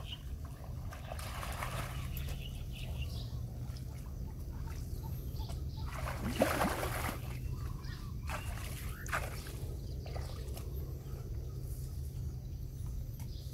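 Shallow ditch water sloshing and trickling as a man wades and works his hands in it while setting a frog trap, with small splashes now and then, the strongest about six seconds in.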